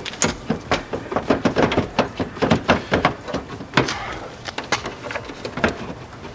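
Plastic Ford Flex headlight assembly being wiggled and pulled free of its mount, giving a run of irregular clicks and knocks.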